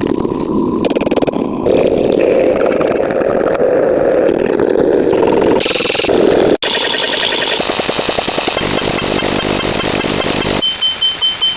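A string of separate sound effects cut one after another: a loud mechanical buzzing and rattling, an abrupt cut to a different rattling buzz about halfway through, then rapid high-pitched electronic beeping near the end.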